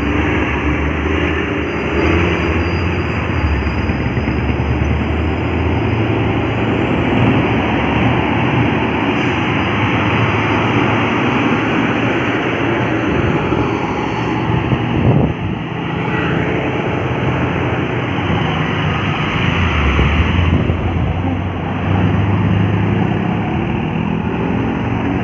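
Heavy truck's diesel engine labouring up a steep climb under a heavy load, mixed with steady road traffic noise.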